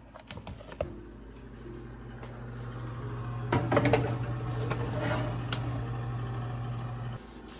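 Metal skillet clattering onto an oven's wire rack as it is set down, with a further click a little later as it settles or the rack moves. Under it a steady low hum runs and cuts off abruptly near the end.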